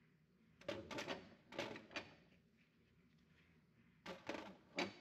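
Steel needle-nose pliers clicking and scraping against a thin aluminium pan as small electronic parts are picked out, in short bursts of clicks about a second in, near two seconds, and a pair just after four seconds.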